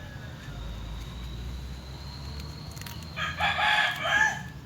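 A rooster crows once, starting about three seconds in: a loud call lasting about a second and a half, in two parts.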